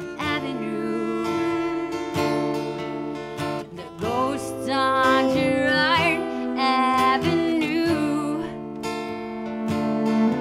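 A Taylor acoustic guitar strummed alongside a bowed cello, with a woman singing with vibrato over them. The singing is heaviest in the middle of the passage.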